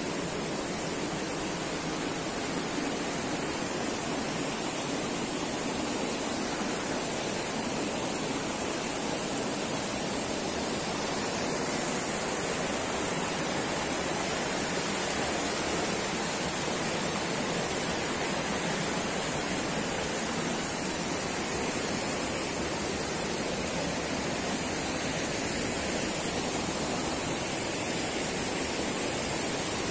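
River water rushing steadily over rocks and small rapids.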